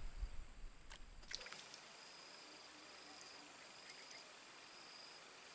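Steady high-pitched shrill of an insect chorus, growing stronger about a second in, with a couple of faint clicks around then.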